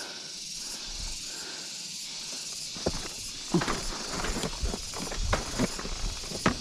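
Steady hiss, then from about three seconds in a run of scuffs, clicks and knocks from footsteps and handling on a dirt trail.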